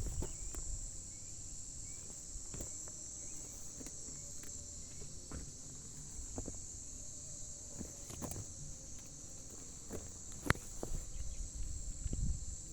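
Steady high-pitched chirring of insects, with scattered light clicks and knocks and one sharp click about ten and a half seconds in.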